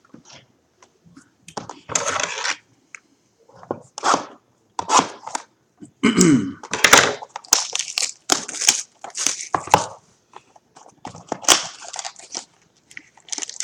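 Plastic wrapping crinkling and tearing and cardboard rustling as a sealed trading-card box is opened by hand and its mini boxes and card packs are handled. The noises come in irregular scrapes and crackles, busiest in the middle.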